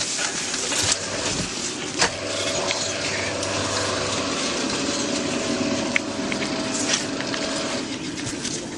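Shaft winch running with a steady mechanical whine as the hoist rope is let back down; it stops near the end. A sharp knock about two seconds in.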